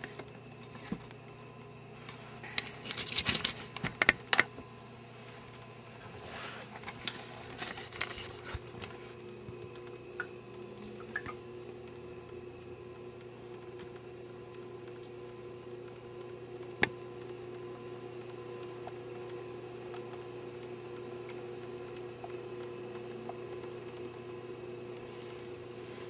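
Aquatic turtle splashing and scrabbling in an aquarium, in a cluster of loud splashes about three to four seconds in and weaker ones a few seconds later, over a steady low hum. A single sharp click sounds about midway.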